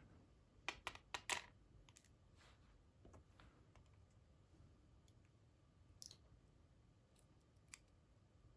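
Faint, sparse clicks of small metal parts: lock pins and springs being handled and tapped out while the American Lock AL1305 core is disassembled. A quick cluster of clicks comes in the first second and a half, then single clicks a few seconds apart.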